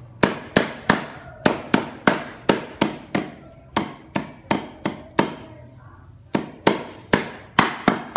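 Repeated chopping blows on a wooden block, about two or three a second, with a short pause about six seconds in.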